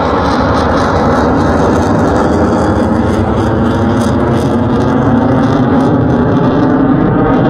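Twin-engine F/A-18-type fighter jet flying overhead: a loud, steady jet rumble with a slowly shifting, phasing tone, growing slightly louder near the end.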